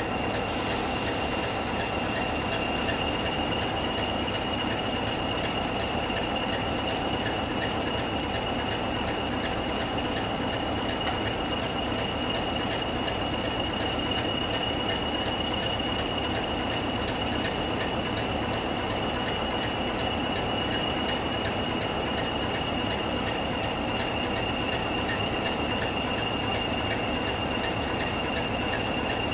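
Class 24 diesel locomotive idling at a standstill, its Sulzer six-cylinder engine running evenly, with a steady high whine throughout.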